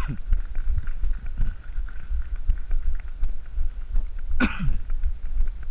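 Low rumble and thumping of wind and running footfalls on a body-worn camera's microphone, with one short, loud cough-like breath from the runner about four and a half seconds in.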